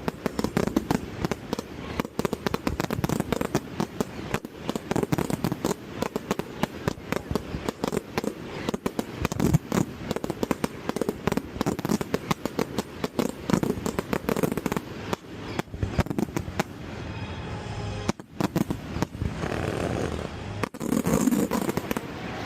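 A fireworks display, shells bursting in quick succession as a dense run of sharp bangs and crackles, thinning out for a few seconds near the end.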